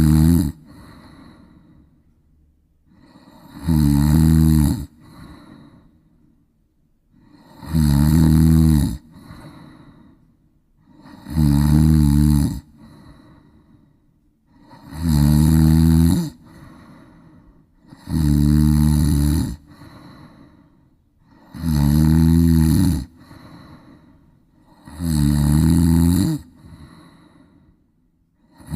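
A woman snoring loudly in a steady rhythm: about eight long, deep, buzzing snores, one every three and a half seconds, each followed by a softer breathy sound.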